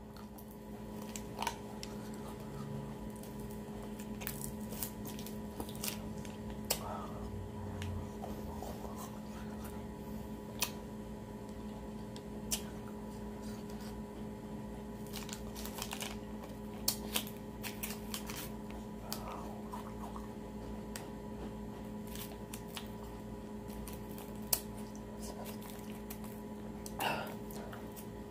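Scattered faint clicks and crinkles of a plastic freezer-pop sleeve being handled, squeezed and sucked on, over a steady low electrical hum.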